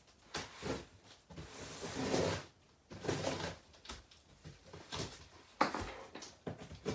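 Cardboard scraping and rustling in uneven bursts as a box is pushed and slid inside a cardboard shipping carton on a wooden floor, with one sharp knock about five and a half seconds in.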